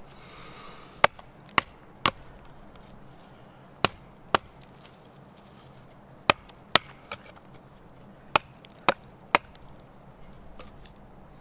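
Sharp chopping strikes on wood, about eleven, in groups of two or three roughly half a second apart with short pauses between the groups.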